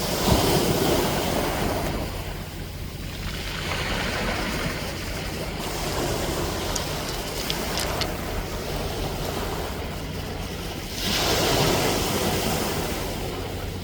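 Ocean waves washing onto the shore, with surges about a second in and again at about 11 seconds, over a low rumble of wind on the microphone.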